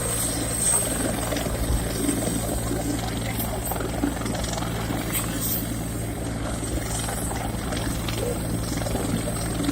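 Helicopter running steadily: a low, even rotor drone with a thin, steady high whine above it.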